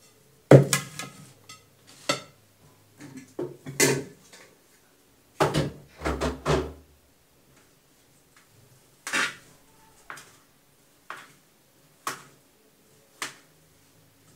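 Plates and serving utensils knocking and clinking as ugali is cut and served onto a plate: separate sharp knocks, a heavier cluster about halfway through, then single clinks about once a second near the end.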